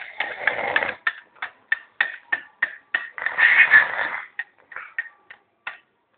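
A man snoring in his sleep: two long snores about three seconds apart, with short sharp snorts and clicks in between.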